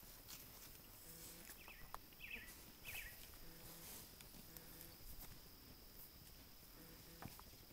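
Near silence of open pasture, with a few faint bird chirps that glide down, about two to three seconds in, and scattered light clicks and rubs from the camera being handled.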